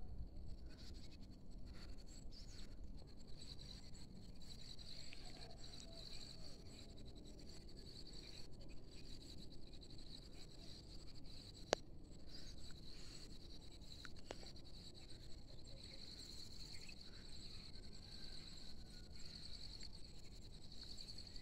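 A steady, high-pitched insect chorus over a faint low rumble, with a sharp click about twelve seconds in and a fainter one a couple of seconds later.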